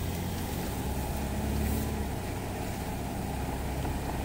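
Inside the cabin of a 1979 Ford Granada 3.0 GL automatic on the move: its 3.0-litre V6 engine running with a steady low road rumble. A faint whine runs under it, which the driver can't place but suspects may be the differential.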